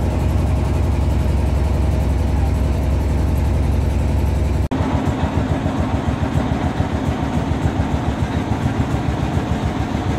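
Motor of a wooden klotok boat running steadily while the boat is underway, heavy and deep. The sound changes abruptly about halfway in, after which it pulses rapidly.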